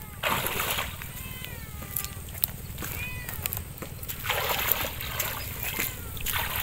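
Water splashing as legs wade through shallow water, in about three separate splashes. Short, repeated high calls that rise and fall in pitch sound over it.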